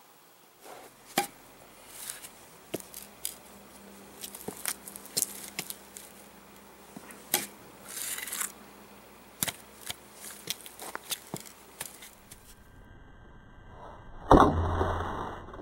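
Forged steel pulp hook knocking and tapping against the end grain of a log: a run of irregular sharp knocks and clicks, then a louder thunk about 14 seconds in.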